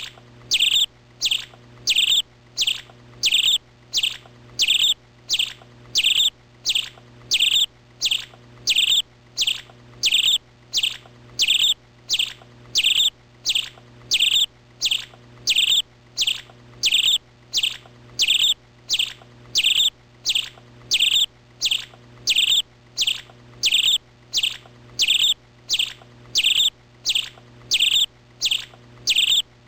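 A bird chirping over and over at a very even pace, a little more than one short, high chirp a second, over a faint steady low hum.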